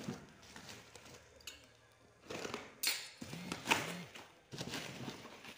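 Plastic wrapping and bubble wrap crinkling and rustling as hands pull it away from a parcel, in irregular bursts with a couple of sharper crackles around the middle.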